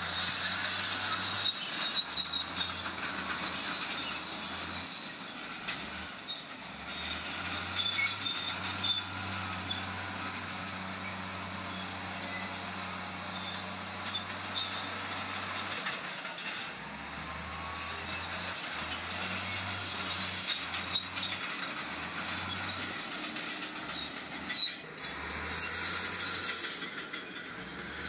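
Crawler bulldozer at work: its steel tracks squeal and rattle steadily over the running engine.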